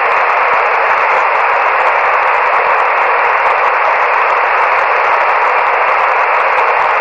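Uniden Grant CB radio's speaker giving out steady, loud static hiss with no voice on the channel, the narrow tinny band of a radio receiver's audio.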